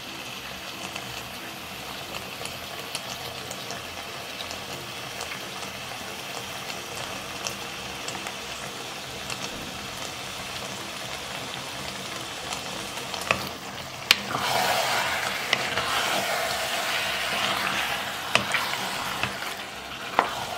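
Spinach and beef tripe stew sizzling and crackling steadily in an open pot. About two-thirds of the way through there is a sharp knock, followed by a louder wet churning as a wooden spatula stirs the stew.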